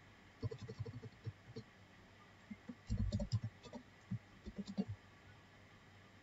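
Computer keyboard being typed on in short runs of keystrokes with pauses between them, as an XPath expression is edited.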